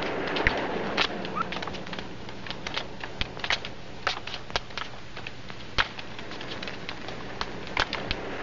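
Footsteps of several people climbing concrete stairs: irregular sharp clicks and scuffs, two to four a second, over a steady soundtrack hiss.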